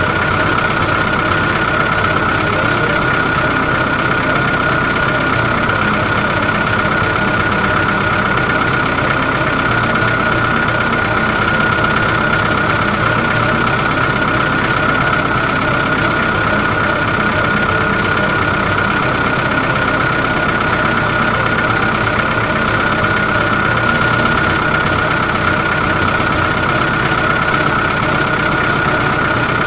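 Steady engine-like idling sound of a radio-controlled construction vehicle, with a constant high whine over it and no change in speed.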